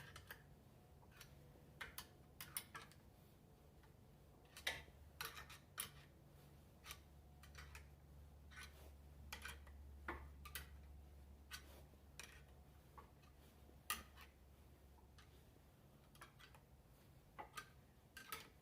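Faint, irregular clicks and taps over a low hum, loudest about five seconds in and again near fourteen seconds.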